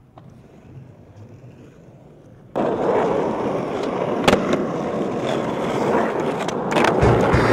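Skateboard wheels rolling on smooth concrete, starting suddenly a few seconds in. A sharp clack of the board landing a flip trick follows about two seconds later, and the rolling carries on.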